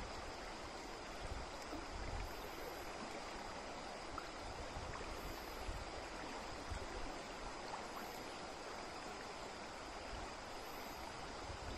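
Shallow stream flowing over stones: a steady rush of running water.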